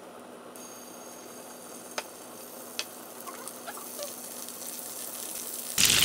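Faint sizzle of cooking oil in a square nonstick frying pan, with a few light ticks. Near the end a much louder sizzle breaks in suddenly as cubes of tofu fry in the hot oil.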